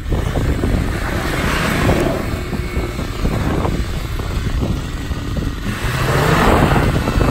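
Suzuki Samurai's engine working under load as it crawls up a steep rocky dirt climb. It grows louder and steadier about six seconds in.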